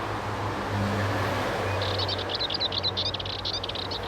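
Dartford warbler singing a rapid run of short, high notes from about two seconds in, over a steady hum of traffic noise.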